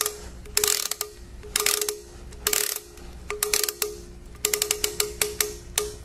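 Ratcheting clicks of the limit-switch adjusting screw in an AUMA SA multi-turn actuator's switch compartment, turned with a screwdriver in short bursts of rapid clicks about a second apart, as the closed limit switch is set by stepping its pointer towards the trip mark.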